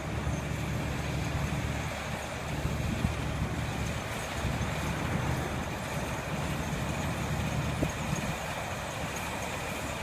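Small rice combine harvester running steadily as it cuts and threshes a standing rice crop, a continuous low engine drone with machinery noise.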